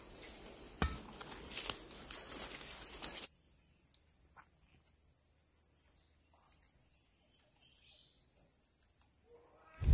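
Steady high-pitched drone of insects, with a few sharp clicks in the first seconds. About three seconds in, the background noise drops away abruptly, leaving only the faint insect tone.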